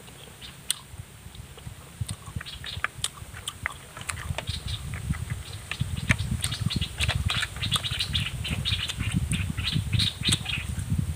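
Close-up eating sounds of a person chewing cooked snail meat: wet smacking and slurping with many sharp little clicks, getting denser and louder from about four seconds in.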